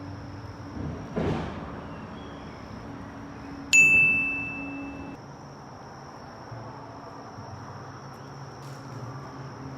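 A single bright metallic ding struck about four seconds in, ringing on one clear pitch and fading over about a second and a half. A brief whoosh comes about a second in, over a steady faint background hiss.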